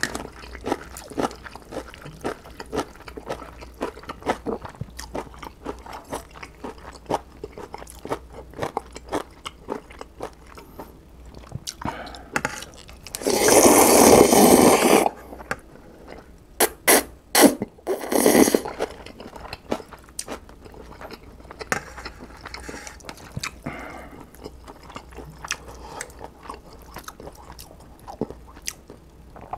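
Eating instant ramen noodles: steady wet chewing with many small smacking clicks. About halfway through comes one long loud slurp of noodles, followed a few seconds later by several shorter slurps.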